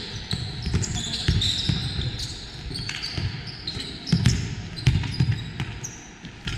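Basketball bouncing on a gym court in irregular thumps as it is dribbled and passed, with sneakers squeaking in short high chirps.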